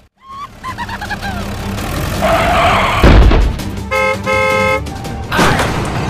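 A vehicle horn honks twice about four seconds in, a short toot then a longer one. It follows a loud low thump about three seconds in and a stretch of rushing noise.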